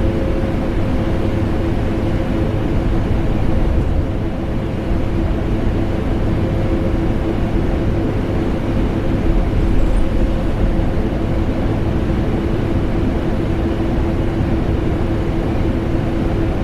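A vacuum cleaner motor and an air conditioner run together as a loud, unbroken, deep whooshing drone with a steady hum through it, used as white noise.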